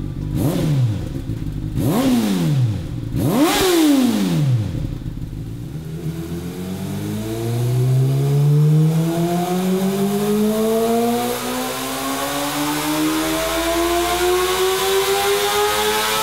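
Honda CBR600RR inline-four sport bike engine, fitted with an aftermarket slip-on exhaust, blipped three times and then wound up in one long, steadily rising pull on a chassis dyno.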